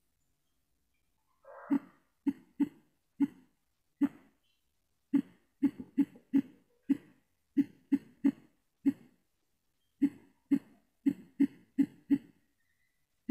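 Typing on a phone's on-screen keyboard: about twenty short key-press clicks in an uneven run, a few a second, preceded by a brief softer noise.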